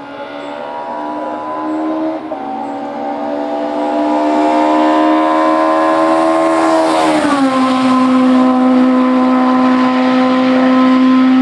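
Hillclimb race car engine under full throttle, climbing steadily in revs as it draws closer and louder. About seven seconds in it upshifts with a sharp drop in pitch, then holds steady revs at its loudest.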